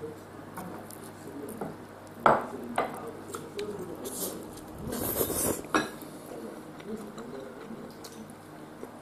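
Tableware being handled around a plastic takeout bowl: light clinks and knocks, two sharp knocks a little over two seconds in, and a louder clattering rustle about five seconds in, over a low steady hum.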